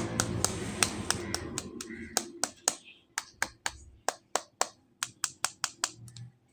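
A run of short, sharp clicks, about three or four a second and unevenly spaced, from handling plastic toys during an unboxing. Background music fades out over the first two seconds or so.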